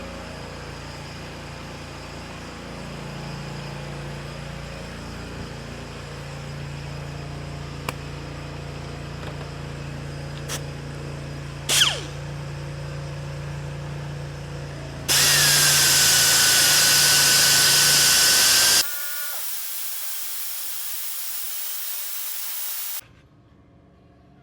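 Small handheld power tool buffing burrs off the drive links of a saw chain, so that the chain will seat in the bar groove again. A steady low hum runs for most of the time. About 15 s in, a loud burst of grinding with a high whine lasts about four seconds, then cuts off.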